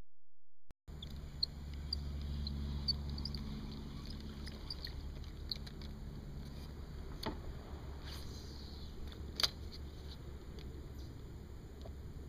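Faint pond ambience heard from a kayak: a steady low rumble, short high chirps through the first few seconds, and a few sharp clicks later on.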